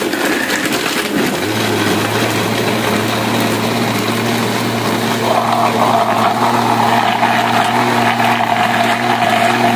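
Electric kitchen blender running with a jar of mango, milk, ice cream and ice. It clatters at first as the ice and fruit hit the blades, settles into a steady motor hum about a second and a half in as the mix turns to a smooth shake, and cuts off suddenly at the end.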